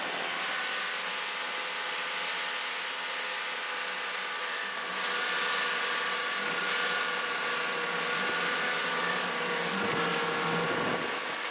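Snowmobile engine running while under way, a steady multi-toned drone that gets a little louder about five seconds in.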